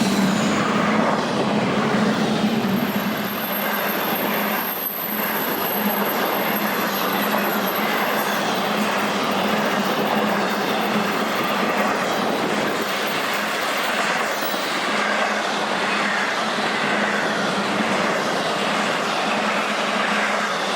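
Train rolling past, a steady rumble of wheels on rail. A thin, high wheel squeal rides over it from a couple of seconds in until about two-thirds of the way through.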